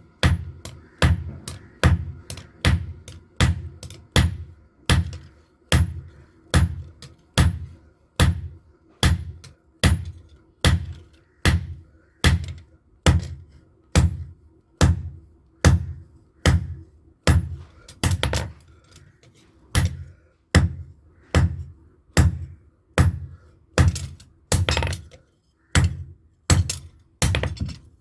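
Hand hammer striking metal on an anvil in a steady rhythm of about two blows a second, each blow a sharp clang with a short ring: a blacksmith forging a knife blade.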